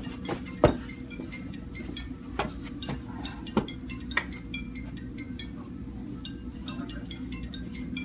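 Steady low room hum, with a few sharp irregular clicks (the loudest about a second in) and faint, short, high tinkling notes scattered throughout.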